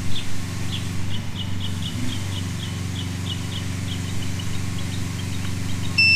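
A steady low electrical hum under a run of short, high chirps repeating about three times a second, from a bird or insect. Right at the end a continuity tester starts a loud, steady beep, the sign that the wire being probed has a path to ground.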